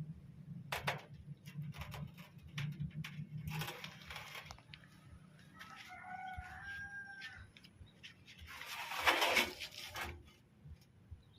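Washing machine with a damaged drum running rough: a low hum that fades out about four seconds in, and noisy rasping bursts, the loudest near the end. A bird calls once in the background about halfway through.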